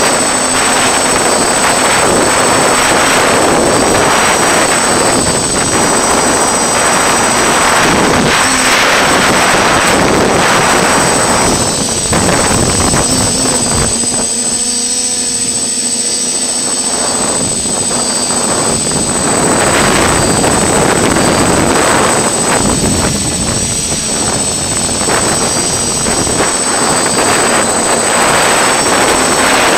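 An FPV drone's electric motors and propellers running steadily, heard through the drone's own onboard camera, with a thin high whine throughout. The noise thins for a moment about halfway through.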